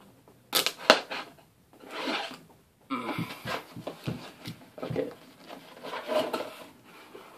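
A cardboard mailer box being worked open by hand: two sharp snaps about half a second in, then several bouts of cardboard rubbing and scraping as the flaps and lid are pulled free.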